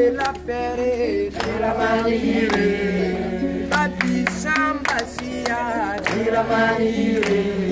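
A group of people singing a gospel song together, with hand claps along with it.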